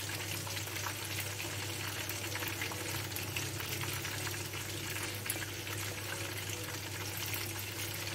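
Onion-and-tomato sauce simmering in a clay tajine, with a steady fine bubbling and crackling. A steady low hum runs underneath.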